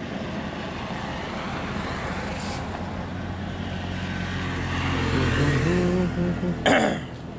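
A motor vehicle running close by, with road noise that grows louder about two thirds of the way in. A voice is heard near the end, and there is a short, sharp noise just before the end.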